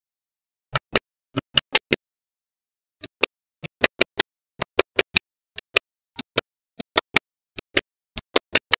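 Small magnetic balls clicking as strips of them are pressed and snapped onto a magnet-ball wall: about thirty sharp clicks, often in quick pairs or threes, with dead silence between them.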